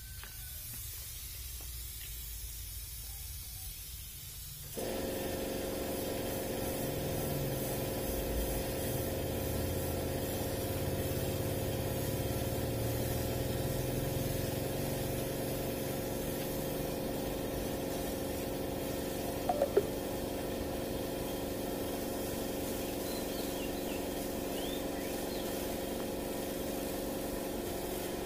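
Air spray gun hissing as it sprays orange-peel texture paint, over the steady hum of an air compressor; it starts suddenly about five seconds in. A brief couple of knocks about twenty seconds in.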